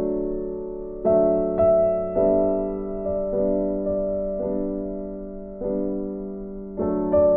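Soft background piano music: slow notes and chords, each struck and left to fade, about one a second.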